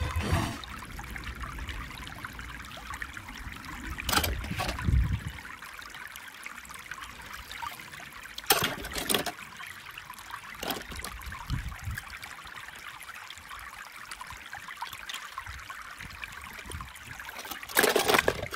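Water trickling steadily, with miniature toy cars clattering against each other in a plastic bucket as a hand rummages through them: a few sharp knocks, the loudest near the end.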